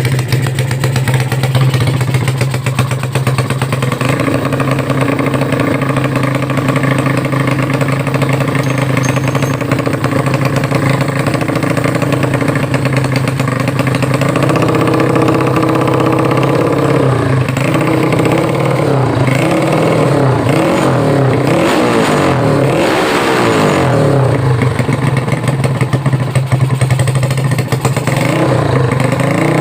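Yamaha 5D9 single-cylinder four-stroke motorcycle engine, bored out and stroked up to 150cc on standard valves. It idles steadily, then from about halfway through it is revved up and down several times over some ten seconds, and it settles back to idle near the end.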